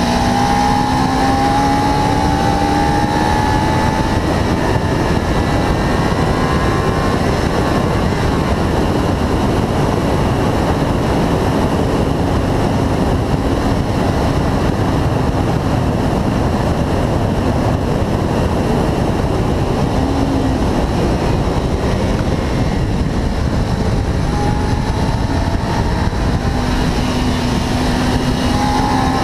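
Kawasaki Ninja 300 parallel-twin engine running hard on track, its pitch rising under acceleration in the first few seconds and again near the end. For most of the stretch it is buried under a steady rush of wind over the bike-mounted camera.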